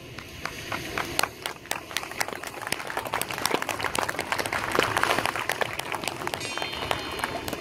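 Applause from a small audience as the music stops: separate claps at first, thickening into fuller clapping about halfway through, then thinning again.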